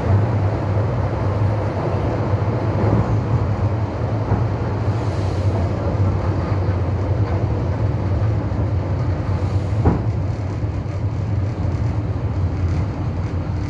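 Train running along the track: a steady rumble with a strong low hum, and one sharp click about ten seconds in.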